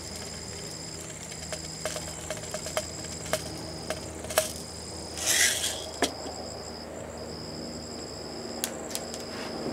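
Fine bird shot being poured into a chamber of an 1861 Navy cap-and-ball revolver's cylinder: a scatter of small clicks and a short rattle about five seconds in. Insects chirr steadily in the background.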